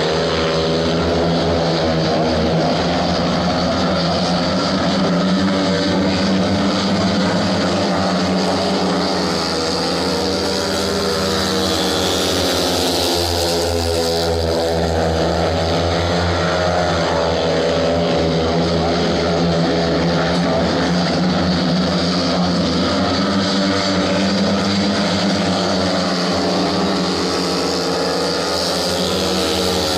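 Several speedway motorcycles racing together, their single-cylinder engines at full throttle with pitches that rise and fall as the riders accelerate down the straights and slide through the bends.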